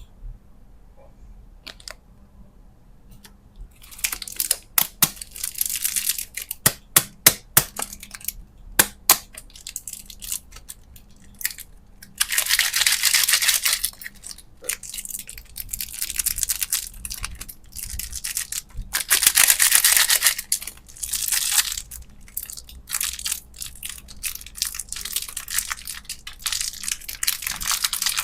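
Plastic candy packaging being handled and opened: a run of sharp crackles and clicks, then longer bursts of crinkling and tearing plastic.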